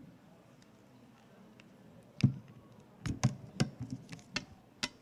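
Handling noise: a string of about seven short, sharp taps and knocks at uneven spacing, starting about two seconds in.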